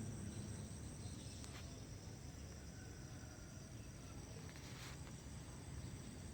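Insects singing steadily: a constant high buzz at two pitches, over a low rumble.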